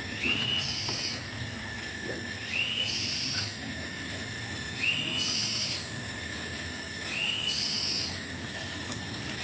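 A repeating whistled animal call, four times, about every two seconds: a short rising whistle with a higher buzzy note over it, then a long steady lower note.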